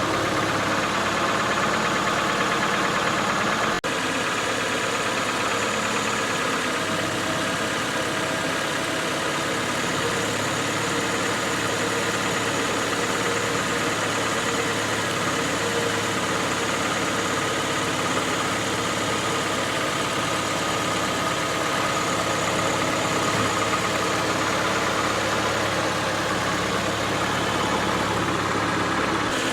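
Car engine running steadily at idle close by, with a brief dropout about four seconds in.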